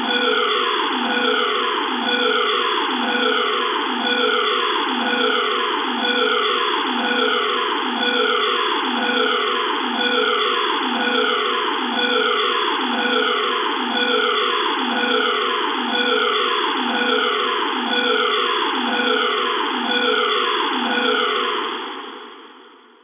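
Electronic emergency alarm sounding a repeating falling tone, about one sweep a second, fading out near the end.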